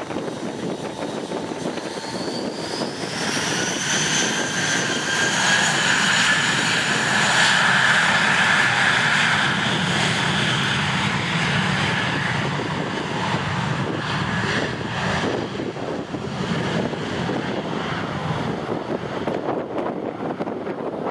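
Airbus A320-200's twin turbofan jet engines at takeoff thrust during the takeoff roll. A whine climbs in pitch about two to four seconds in as the engines spool up, and the jet noise is loudest around eight seconds in as the aircraft passes, then eases off gradually as it heads away down the runway.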